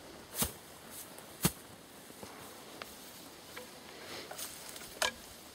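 Three sharp knocks over a faint background: two about a second apart near the start, the second the loudest, and a third near the end, with a few lighter clicks in between.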